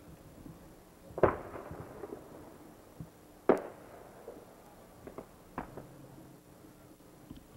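Aerial fireworks bursting: two loud bangs about two seconds apart, each trailing off in a fading echo, then a few fainter pops.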